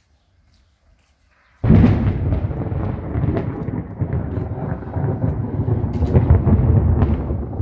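Close thunderclap: a sudden loud crack about a second and a half in, followed by a long rolling rumble of thunder that keeps going.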